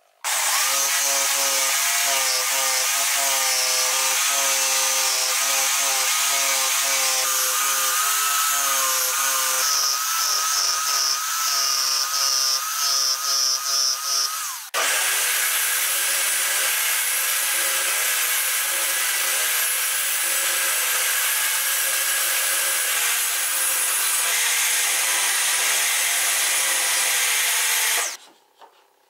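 Jigsaw cutting a curve in a pine board, its motor pitch wavering, the sound stuttering on and off in the last few seconds of the cut. After an abrupt switch about halfway through, a table saw runs steadily for around thirteen seconds, then stops near the end.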